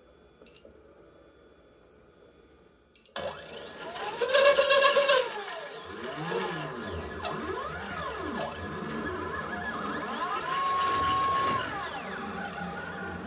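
Two short electronic beeps from the winder's LCD controller as it is worked, then its stepper motors start about three seconds in. They whine in pitch arcs that rise and fall over and over as the drives speed up and slow down, with one stretch held at a steady pitch for about a second near the end.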